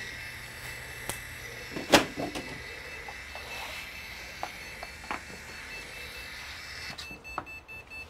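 Desktop PC stuck in a boot loop, running with a steady hum, and a loud knock about two seconds in as the metal side panel of the case comes off. Near the end its motherboard speaker starts a rapid string of short high beeps again; non-stop beeping that the technician takes most commonly to mean a RAM fault.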